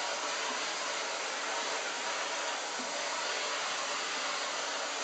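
Vacuum cleaner running with a steady hiss of suction while its brush attachment is drawn through a Bernese Mountain Dog's coat.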